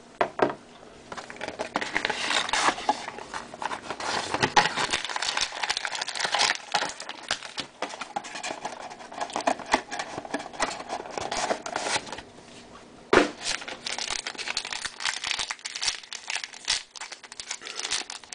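Foil trading-card pack wrapper crinkling and tearing as it is handled and torn open by hand, with one sharp tap about two-thirds of the way through.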